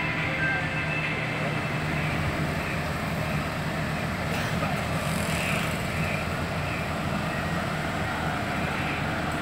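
Fairground ambience: a steady low mechanical hum with a constant background bustle.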